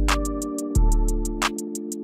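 Electronic background music with a steady beat: a kick drum, quick hi-hat ticks and held synth chords.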